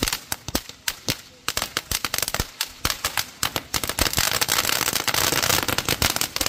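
Ground-level consumer firework fountain popping and crackling rapidly and irregularly as it sprays sparks, thickening into a dense continuous crackle about four seconds in.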